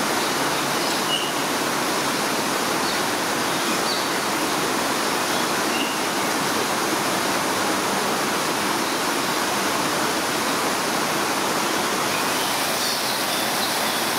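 Steady rushing of falling or running water, even and unbroken, with a few faint bird chirps over it.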